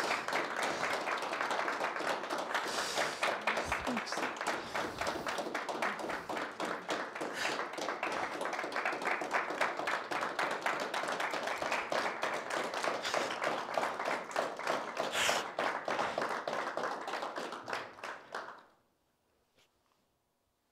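Audience applauding, many hands clapping steadily, then dying away near the end.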